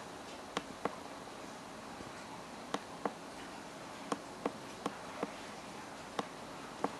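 About ten short, sharp clicks at irregular intervals as a finger taps the touchscreen of a Flytouch 5 Android tablet, over a steady low buzz.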